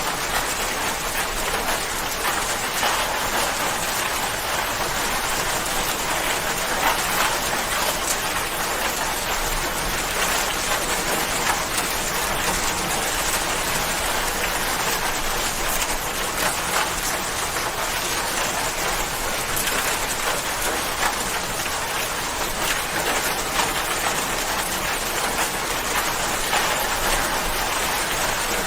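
Steady rain falling and pattering on a surface: an even hiss of many fine drops.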